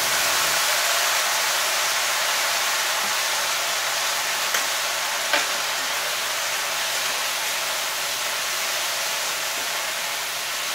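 Teriyaki sauce sizzling as it hits chicken pieces frying in a skillet: a steady hiss that eases off slightly, with two light clicks around the middle as it is stirred.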